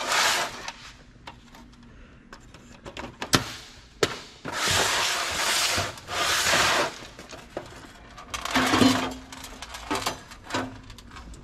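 Old computer being dismantled by hand: several stretches of scraping and rubbing, each a second or two long, with a few sharp knocks as parts are handled and tossed aside.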